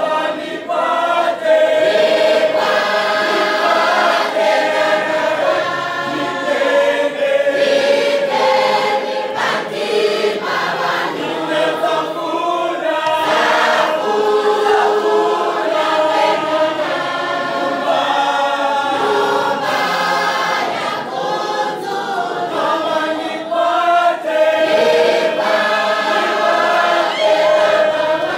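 A large church choir singing a gospel song together, many voices holding long notes.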